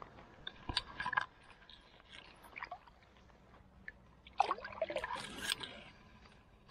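Water splashing and sloshing as a carp is released from a wet fabric landing sling into shallow lake water. Two bouts of splashing, about a second in and again past the middle.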